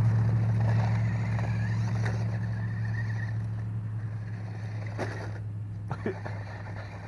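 Electric motor and gears of a toy RC truck running with a steady low hum that fades gradually as the truck moves away, with a few short knocks about five and six seconds in as it bumps over rough ground.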